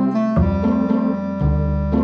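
Background music: an electronic keyboard tune with a bass line, notes changing about every half second.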